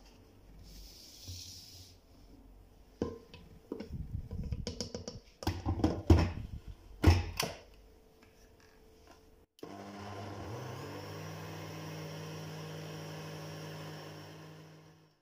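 Hard knocks and clatter of a glass blender jug being handled and set in place, the loudest sounds here, then a countertop blender's motor switches on about two-thirds of the way in, winds up in pitch and runs steadily, blending a thin flour-and-water batter, fading near the end.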